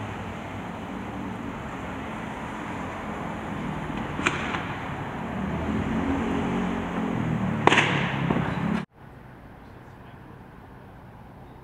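Street noise with a vehicle engine running, and two sharp cracks about four and seven and a half seconds in. It cuts off abruptly near the end to a quieter steady hum.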